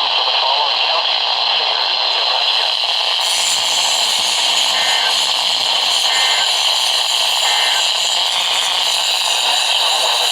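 Weather-radio receiver hissing with heavy static on a weak signal. About halfway through come three short, evenly spaced two-tone data bursts, the EAS end-of-message code that closes an alert.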